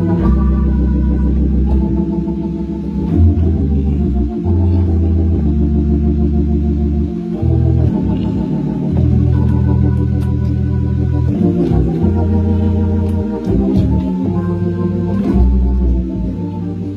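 Hammond organ playing a groove: sustained chords over deep bass notes that change every second or two.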